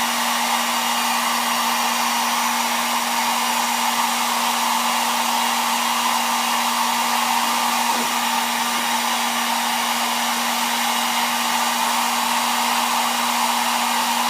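Hair dryer running steadily, a constant rushing hiss with a low hum, heating a phone screen to melt the glue under the glass.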